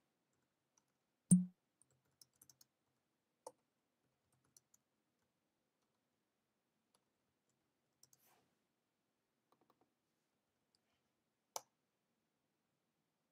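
A few computer keyboard keystrokes clicking, spread out with gaps, with one much louder thump about a second in and a sharper click near the end.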